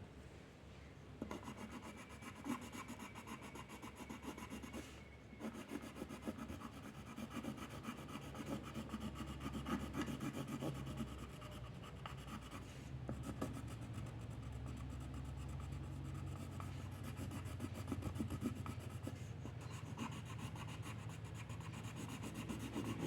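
Rapid back-and-forth drawing strokes scratching on paper, as in shading or colouring.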